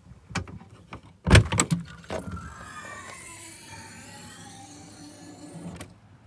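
Motorhome door being unlatched and opened: a few clicks and one loud knock, then a small electric motor whining for about four seconds with its pitch sliding, cutting off suddenly.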